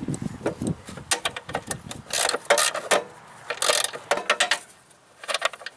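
Ratchet wrench working a 3/8 bolt on a push mower's handle assembly: irregular bursts of clicking and rasping metal scrapes.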